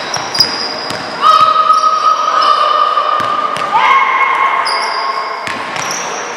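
Basketball game in a gym: a ball bouncing on the court in a large, echoing hall, with scattered sharp knocks and long, level high tones held for a second or two at a time.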